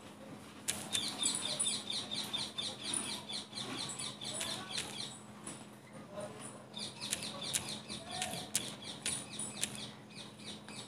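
A bird chirping in two quick runs of short, repeated chirps, about four a second, the second run starting past the middle. A few sharp clicks and a low steady hum sit underneath.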